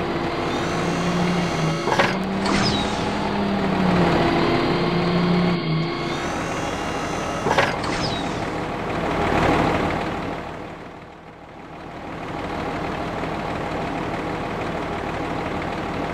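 Cartoon truck engine sound effect running steadily, with two short high squeals about two and a half and seven and a half seconds in; the engine noise swells, then dips briefly past the middle.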